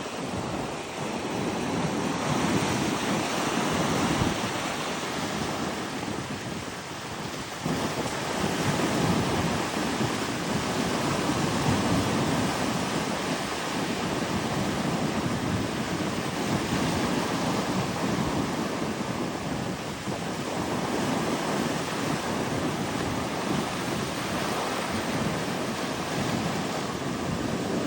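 Ocean surf breaking and washing up the beach in a steady rush that swells and eases every few seconds, with wind on the microphone.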